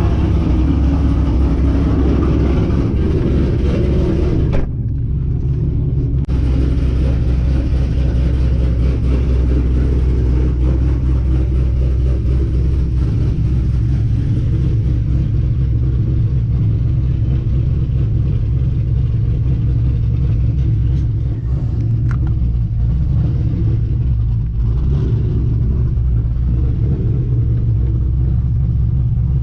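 Cammed Chevrolet Camaro SS V8 with an aftermarket GPI camshaft, running with a steady, loud exhaust rumble. The higher hiss drops away for a moment about five seconds in, while the low rumble carries on.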